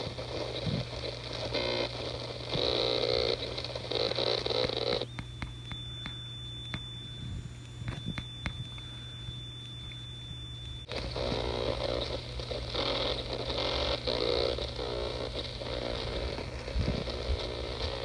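Distorted, feedback-like noise from an iPhone 4s with a faulty audio IC chip on its logic board, played through an external speaker, over a steady low hum. The noise cuts out about five seconds in and comes back about six seconds later, the break coming as apps are closed on the phone.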